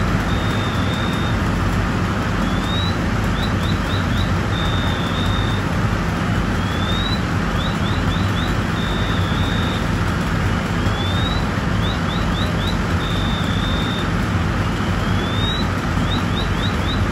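Fire engine's engine and pump running steadily at a working house fire, a loud, even rumble with hiss. Faintly over it, an electronic alarm cycles about every four seconds: a rising sweep, a few quick chirps, then a held tone.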